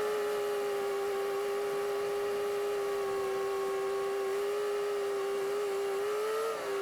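A steady high-pitched motor whine with several overtones, its pitch wavering up and back down briefly near the end.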